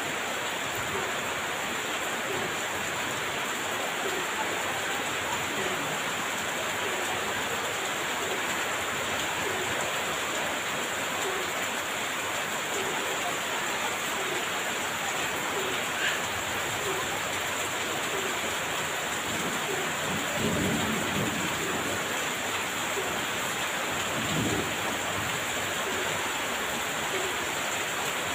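Heavy rain falling steadily, with low rolls of thunder twice in the last third.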